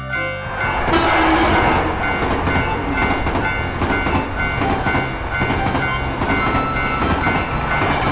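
Cartoon sound effect of a train passing a level crossing: a loud rushing rumble that builds about half a second in and runs on, with background music playing under it.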